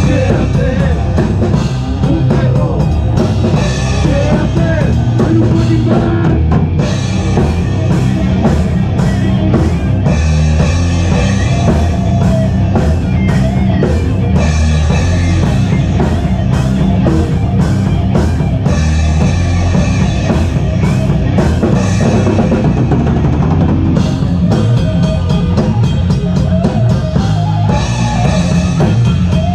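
Doom-stoner rock band playing loud and steady, recorded live in a rehearsal room: a full drum kit with a heavy bass drum under guitar and bass.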